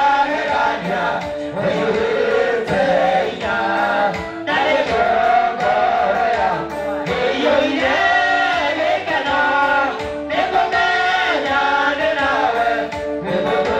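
A man singing a gospel song into a microphone, amplified through loudspeakers, with music and other voices singing along.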